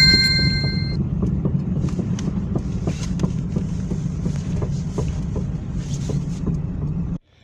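A car being driven with a steady low rumble and frequent short, sharp knocks from the front suspension. The knocking comes from a worn left anti-roll bar (stabilizer) link.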